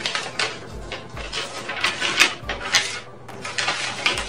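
A sheet of paper being handled and folded: a run of short rustling, crinkling bursts, some sharper than others.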